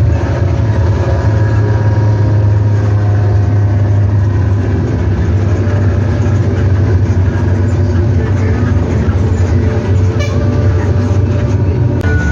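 Nissan Diesel CB87L bus's diesel engine running steadily through its 'ngorok' (snoring) exhaust: a loud, deep, even drone heard inside the cabin from the rearmost seat.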